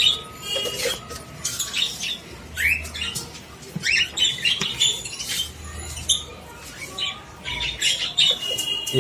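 An aviary of small parrots (cockatiels, lovebirds and conures) calling: many short chirps and quick rising calls, overlapping one another.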